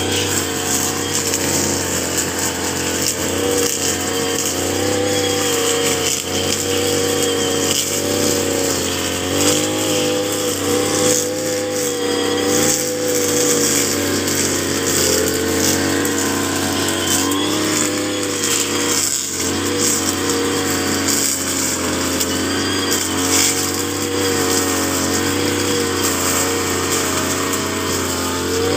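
Motorized brush cutter's small engine running under load as its trimmer head cuts tall grass, the engine pitch wavering up and down as it bites into the growth.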